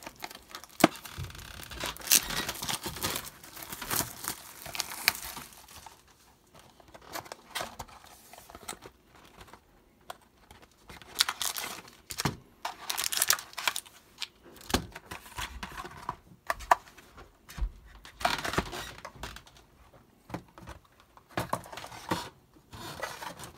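Plastic wrapping being torn off a sealed box of trading cards, then the box opened and the foil card packs handled and set down, crinkling. The tearing and crinkling come in irregular bursts with short quieter gaps.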